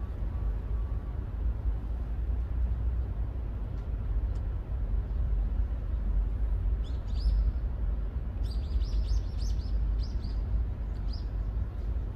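A small bird chirps in quick series, a brief run about seven seconds in and a longer run from about eight and a half to eleven seconds, over a steady low rumble.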